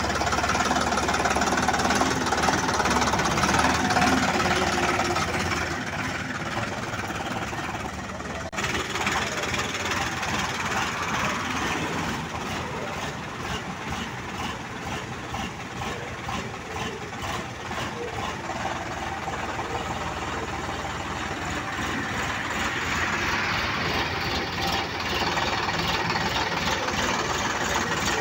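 Sonalika DI 47 RX Mahabali tractor's diesel engine running as the tractor is driven about, with an abrupt break in the sound about eight seconds in.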